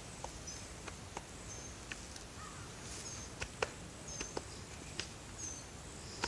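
Faint outdoor ambience: short high chirps repeat roughly once a second, with scattered light clicks. The loudest is a sharper click a little past halfway.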